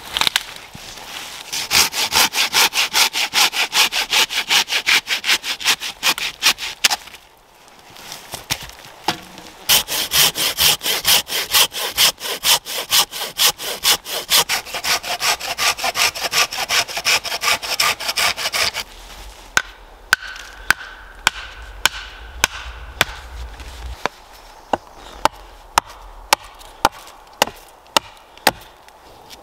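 Hand pruning saw cutting through a pine branch in fast, even strokes, in two runs with a short pause between. About two-thirds through the sawing stops and a hatchet takes over, splitting wood on a stump with a string of sharp single knocks.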